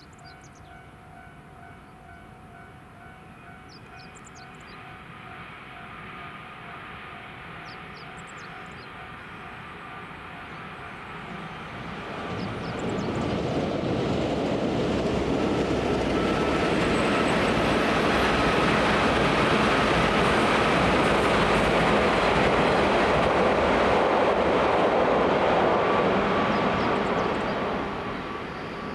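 JR West 201 series chopper-controlled electric multiple unit approaching and passing close by. The noise of wheels on rail builds from about 12 s, holds loud and steady for some fifteen seconds, and falls away near the end. During the approach a steady ringing tone is heard.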